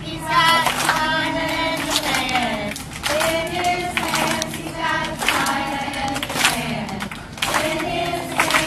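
A large group of schoolchildren singing together outdoors, with hand claps.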